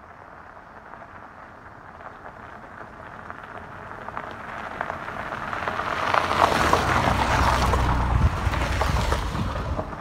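Hyundai Tucson SUV towing a small caravan over a gravel road: tyres crunching on the gravel and engine running. It grows steadily louder as it approaches, is loudest as it passes close by about six to nine seconds in, then eases off.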